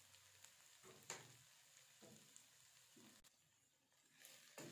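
Near silence, with one faint click about a second in. Right at the end, a spatula stirring vegetables in a sizzling wok starts faintly.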